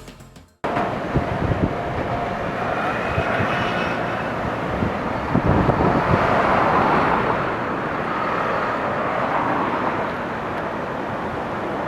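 Outdoor ambience: a steady rushing noise that starts abruptly about half a second in and swells toward the middle, with faint steady tones and a vehicle-like character.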